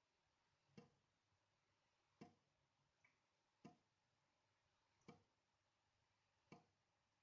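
Dripping tap: single water drops falling at a slow, even rate, about one every one and a half seconds, five in all. A fainter small drip falls between two of them.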